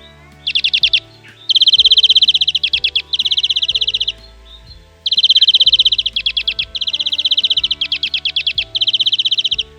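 European greenfinch song: a string of fast trilled phrases, each half a second to a second long, with short gaps between them. Soft music with held notes runs underneath.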